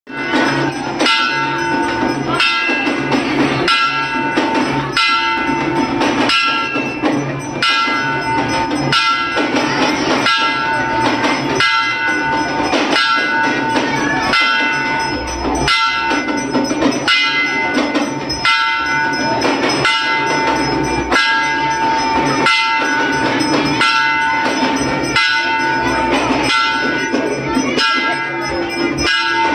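Temple bell rung in a steady rhythm, about one and a half strokes a second, each stroke ringing on into the next.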